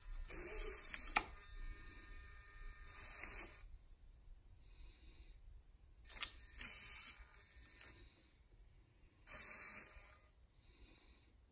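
Small hobby servo motors driving the fingers of an animatronic hand, whirring in four short bursts as the fingers fold and straighten, with a sharp click about a second in and again past the middle.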